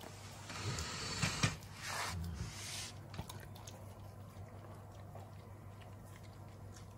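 Alaskan Malamute chewing a piece of watermelon, wet squishy munching with a couple of sharp clicks in the first three seconds, then softer licking at the floor.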